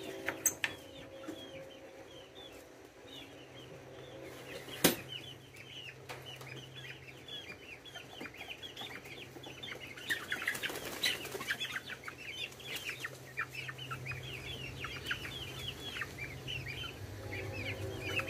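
Chickens leaving their coop: many short, high chirps throughout, two sharp clicks (one near the start, one about five seconds in), and a flurry of wing flapping about ten seconds in.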